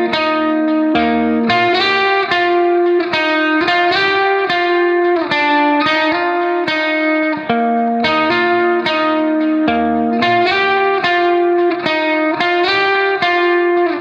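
Background instrumental music: a plucked-string melody of quick, repeating notes, several a second.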